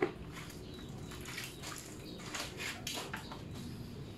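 Water splashing in a bucket, then light dripping and patter.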